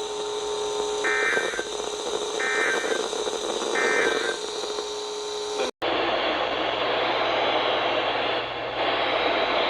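Three short, identical bursts of Emergency Alert System digital data tones, about a second apart: the end-of-message code that closes an EAS alert. They sound over a steady radio hum. Near six seconds in the audio cuts out abruptly and is replaced by steady radio hiss.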